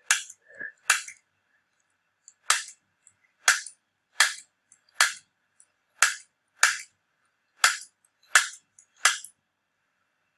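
Chiropractic adjusting instrument firing into the spine: about eleven sharp clicks, roughly one a second, over a faint steady high hum.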